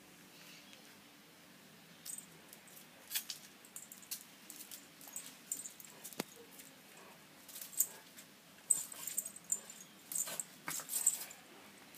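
A Jack Russell puppy scuffling and pouncing on a tiled floor: scattered short clicks and scratches of its paws, with light metallic jingling, starting about two seconds in and busiest in the last few seconds.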